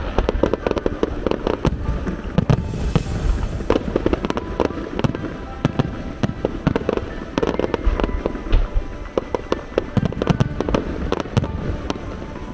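Aerial fireworks going off in a dense, irregular string of bangs and crackles, with music playing underneath.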